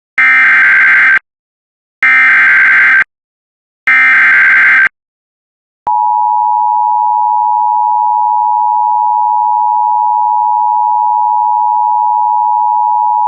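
Emergency Alert System SAME header: three warbling digital data bursts, each about a second long and a second apart. About six seconds in, the steady EAS attention tone starts and holds, announcing the emergency message that follows.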